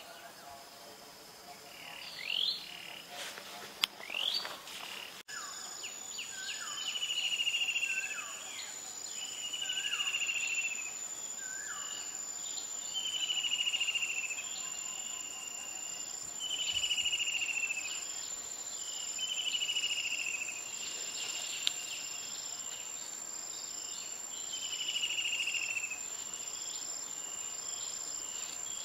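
Forest insect sounds: a steady high whine, with a buzzy call about a second long repeating every two to three seconds. Brief rising chirps come in the first few seconds, before the sound changes abruptly about five seconds in.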